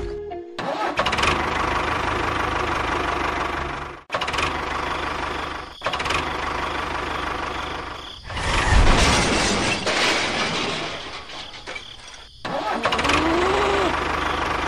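Engine running steadily, heard in several short segments separated by abrupt cuts, and louder for a couple of seconds about eight seconds in. Faint wavering tones come in near the end.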